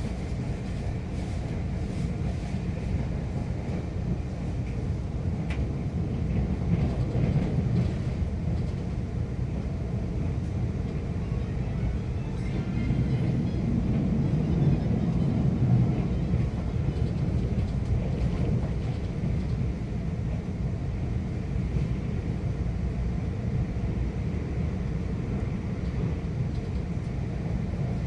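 Taiwan Railways train running through a station without stopping: a steady low rumble of wheels on the track, swelling a little around the middle.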